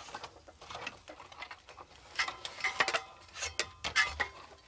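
Light knocks, clicks and rattles of a finned heatsink and its metal mounting plate being handled and turned over with gloved hands, busier in the second half.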